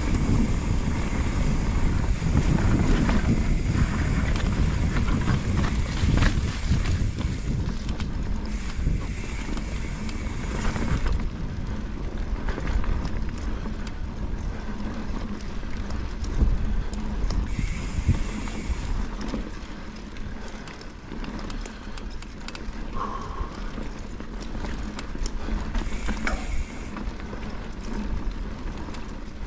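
Mountain bike being ridden on a dirt trail: tyres rumbling over the ground, and the bike rattling with many small clicks and knocks, mixed with wind rumble on the microphone. It gets somewhat quieter in the second half.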